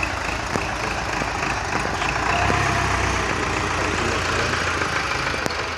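Farm tractor's diesel engine running as the tractor moves slowly past, growing louder about two seconds in as it comes close.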